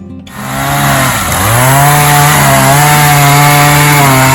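Chainsaw running at full throttle, cutting into a tree trunk to make the felling notch. Its pitch dips briefly as the chain bites into the wood about a second in, then holds steady.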